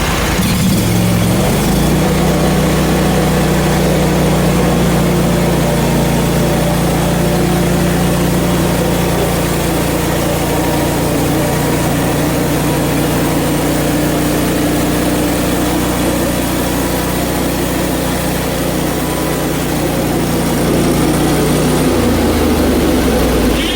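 Portable band sawmill's gasoline engine running steadily while the band blade cuts through a hard maple log; the engine's tone changes shortly before the end.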